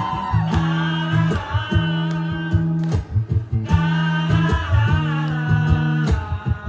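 Live acoustic band music in an instrumental passage of a pop-rock song: guitar chords over a steady bass line, with a wavering melody line above that drops out briefly about halfway through.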